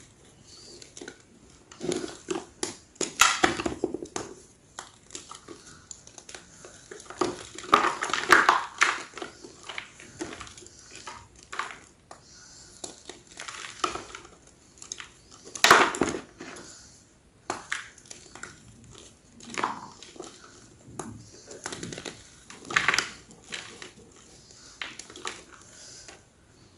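Large slabs of gym chalk crunching and crumbling in separate crisp bursts a few seconds apart, some short and some longer runs of crackle.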